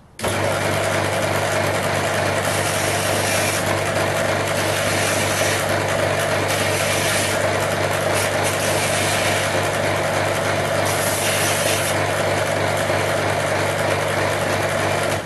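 Small electric bench belt sander running with a steady motor hum while a short ring of metal tubing is ground on the belt; the high grinding hiss swells and eases several times as the piece is pressed on and lifted.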